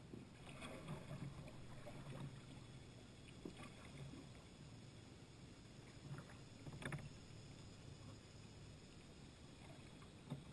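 Faint kayak paddling: paddle blades dipping and water splashing off them at irregular intervals, with a sharper click about seven seconds in and again near the end.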